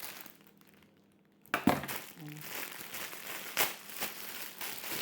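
Plastic packaging crinkling and rustling as it is handled and opened. After a quiet moment it starts with a sharp crackle about a second and a half in, then carries on in uneven crackles.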